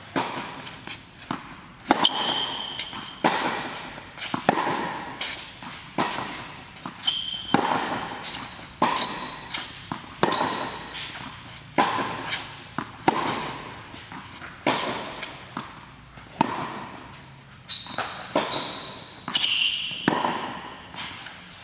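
Tennis rally on an indoor hard court: racquets striking the ball and the ball bouncing give a sharp pop every second or so, each ringing in the large hall. A few short high squeaks come in between.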